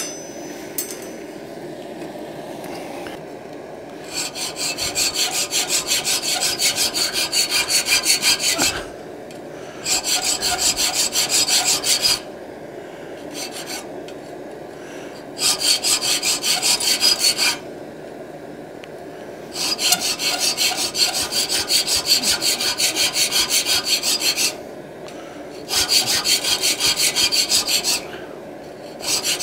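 Triangular file cutting decorative grooves across a forged steel hinge strap: quick, even strokes in runs of two to five seconds with short pauses between. A sharp metallic clink at the very start.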